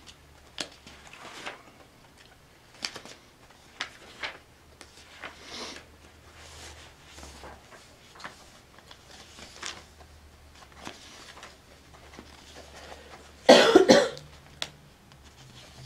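A person coughing once, loud and short, near the end, after faint scattered clicks and rustles.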